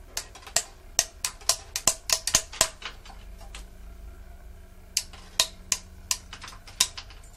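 Dry uncooked spaghetti noodles snapping one after another as a vise squeezes them across a wooden fault model. A quick run of about a dozen sharp snaps comes in the first few seconds, then a pause, then about six more snaps near the end.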